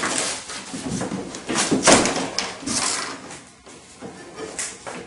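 Handling noises from working at a road bike's rear wheel: rustling with several sharp knocks and clatters, the loudest about two seconds in, as the wheel is tugged at to get it out of the frame.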